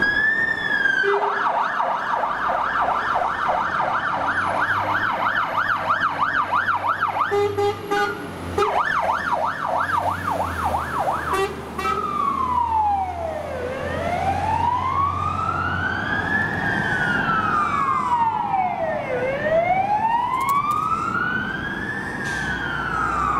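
Fire engine electronic sirens: a fast yelp sweeping up and down about four times a second, breaking off briefly, then changing about halfway to a slow wail that rises and falls every five or six seconds. Heavy truck engines run underneath.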